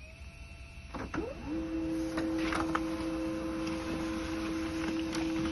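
HP Laser MFP 137fnw laser printer printing a supplies status report. After a couple of clicks, its motor starts about a second and a half in and runs with a steady hum, with a few more clicks as the sheet feeds through.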